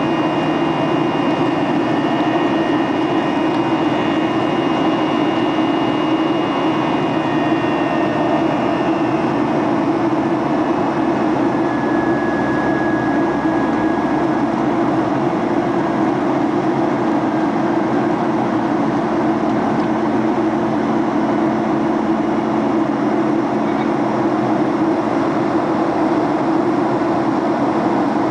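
Steady cabin noise inside a Boeing 737-800 climbing out: the drone of its CFM56-7B turbofan engines and the rush of air over the fuselage. A few faint high whining tones fade away in the first ten seconds or so.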